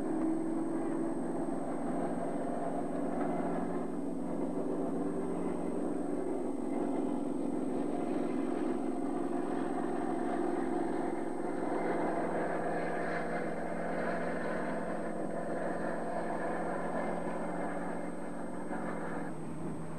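Steady engine drone of military landing craft and amphibious vehicles working through the surf, with a rushing noise of surf and spray building in the second half; the drone stops about a second before the end.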